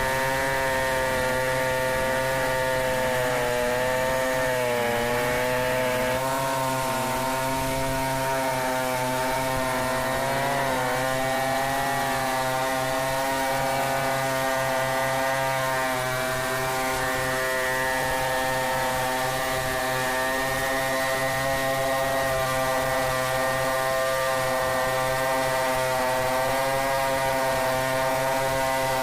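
Large two-stroke chainsaw, a Stihl 070, running at high speed while cutting wood. Its pitch sags briefly a few seconds in and again about ten seconds in as the chain bites.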